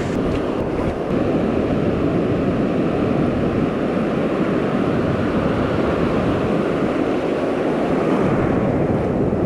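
Ocean surf breaking and washing up the beach in a steady rush, with wind on the microphone.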